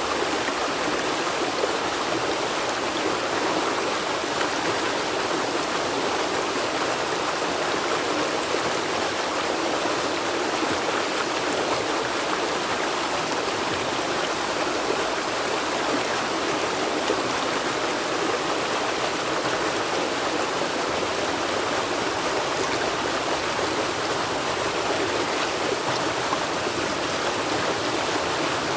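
River water flowing and rushing steadily, an even hiss-like rush with no breaks or single splashes.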